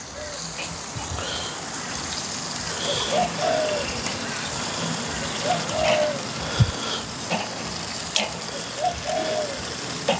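Steady sizzling and crackling from a charcoal kettle grill, with a few sharp clicks of metal tongs on the grate as the bread is turned. A bird calls several times in the background.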